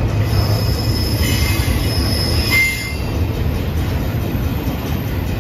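Intermodal freight train's container cars rolling past with a heavy, steady rumble. Wheels squeal in thin, high-pitched tones, with one sharper squeal about halfway through.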